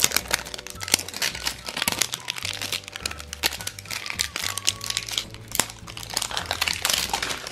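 Plastic wrapping crinkling as it is peeled and pulled off a large plastic surprise egg, a dense run of irregular crackles, with background music.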